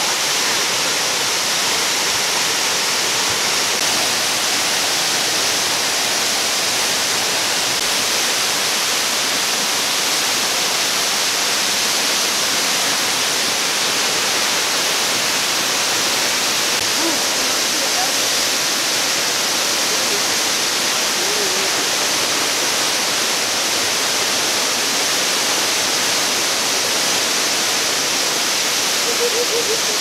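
Steady rush of a tall waterfall falling onto rocks, loud and unchanging.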